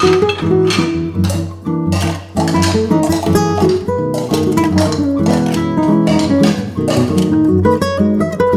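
Background music: plucked acoustic guitar playing a lively, rhythmic tune.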